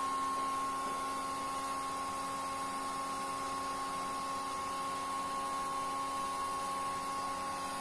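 Steady electrical hum with hiss and a few fixed buzzing tones, no music: idle noise of a home-built power amplifier feeding its 12-inch speakers with no signal yet playing.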